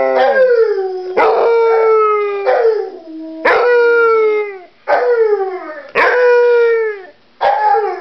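Basset hound howling with a rawhide bone held in its mouth: a run of about six short howls, each starting sharply and sliding down in pitch.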